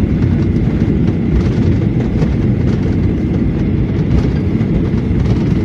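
Airliner cabin noise as the plane rolls on the ground after landing: a steady, even low rumble of wheels and engines with no separate bumps.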